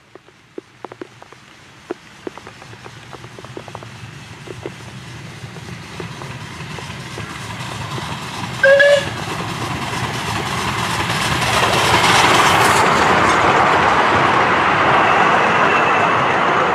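Miniature steam locomotive, a rebuilt Bulleid 'Merchant Navy' 4-6-2, approaching and passing with its goods wagons: wheels clicking over the rail joints as it nears, one short whistle toot about nine seconds in, then the steam and running noise of the engine and wagons growing loud as they go by.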